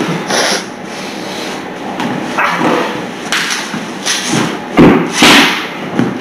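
A cardboard box with glued flaps being yanked and pried at by hand. It comes in a series of short scraping, ripping bursts and thumps, the two loudest near the end.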